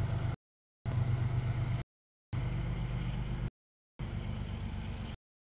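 CSX double-stack container train rolling past, a steady low rumble. The sound comes in four stretches of about a second, cut apart by half-second gaps of dead silence: dropouts in the stream's audio.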